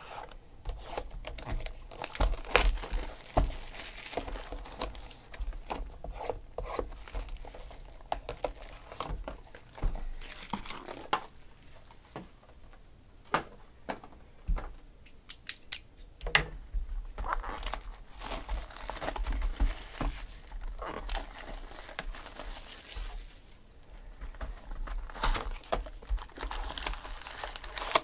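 Plastic shrink wrap being slit, torn off a Bowman Chrome trading-card vending box and crinkled up, then the cardboard box opened and the card packs handled: irregular crinkling and tearing with small clicks and taps in between.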